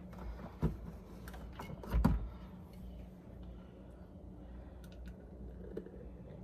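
A few light knocks and clicks, the loudest about two seconds in, over a faint low steady hum. No blender is running.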